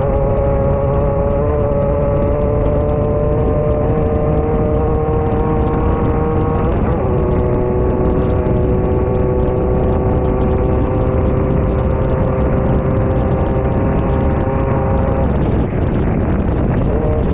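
Class 9 off-road race car's engine running hard at steady high revs, heard from inside the car over a constant low rumble of wind and chassis rattle. The engine pitch drops once about seven seconds in, like an upshift, and it eases off briefly near the end before pulling again.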